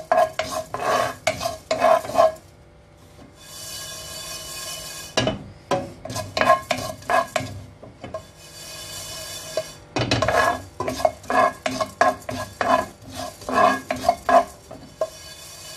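A spatula stirring and scraping fenugreek seeds around a nonstick pan as they dry-roast, in quick repeated strokes of about three a second. The stirring stops twice for a few seconds, leaving a steady hiss.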